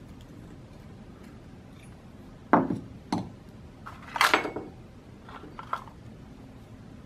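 Metal engine parts knocking and clinking on a workbench as a connecting rod is handled and bearing shells are fitted: two sharp knocks about two and a half and three seconds in, a short clatter of clinks a second later, and a few lighter taps after that.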